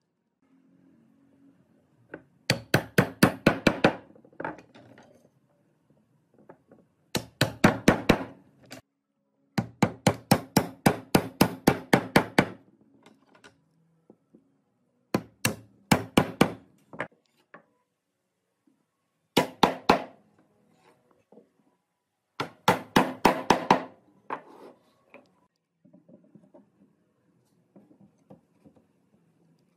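Wooden mallet tapping wooden slats down into mortises in a wooden rail. The taps come in six quick runs of about seven or eight strikes a second, each run a second or two long.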